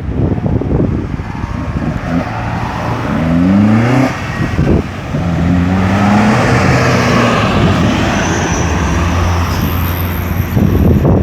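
Road traffic passing close by: one vehicle's engine rises in pitch as it accelerates about three seconds in, another follows, and a steady low engine drone of a heavier vehicle carries through the second half.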